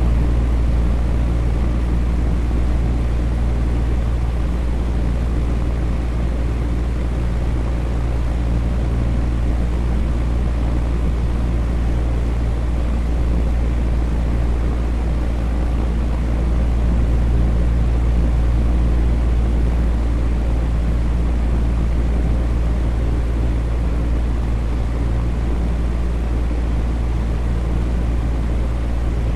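Electric fan running steadily: an even whoosh of moving air over a strong, constant low motor hum.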